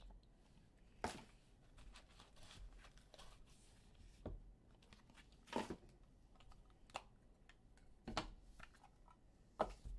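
Faint rustling and scattered clicks of trading cards and a pack wrapper being handled, each sound short and a second or two apart.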